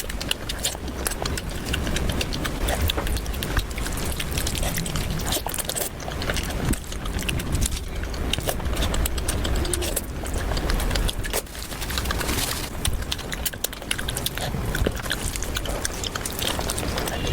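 Close-miked eating: irregular crunching, chewing and wet mouth smacks.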